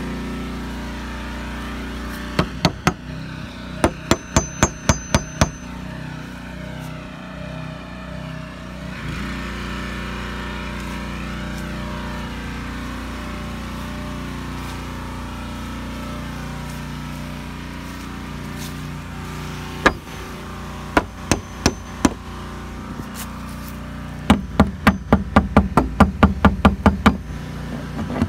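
Claw hammer driving nails into a wooden fence: short bursts of sharp strikes, then a fast run of about fifteen blows near the end, over a steady low hum.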